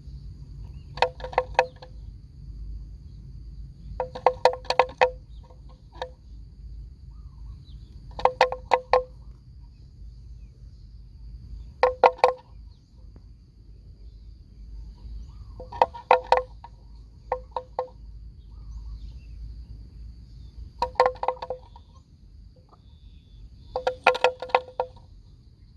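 Short bursts of bell-like metallic ringing, a few quick strokes in each, recurring every three to five seconds, over a steady thin high whine and low wind rumble.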